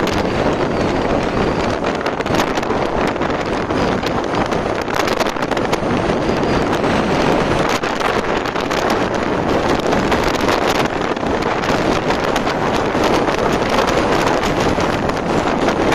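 Steady wind rush buffeting the microphone on a moving motorcycle, with the ride's road and engine noise underneath.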